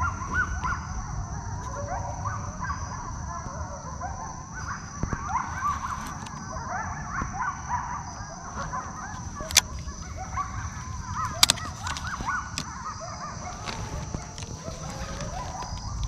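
Wild birds calling, many short rising-and-falling calls overlapping one another, over a steady high thin whine. Two sharp clicks sound about two seconds apart near the middle.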